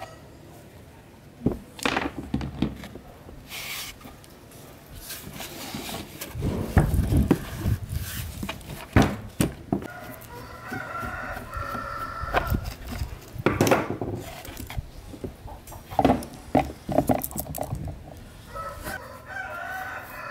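Sharp metal knocks, clicks and scraping from an old electric fan motor's metal housing being pried and tapped apart with a screwdriver. Chickens cluck and a rooster crows in the background.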